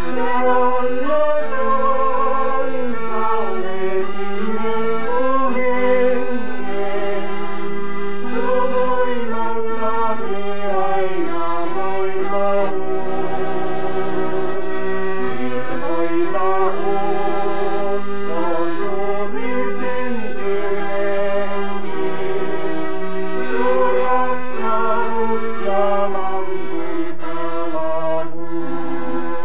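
Accordion playing a Christian song in held chords, with singing over it.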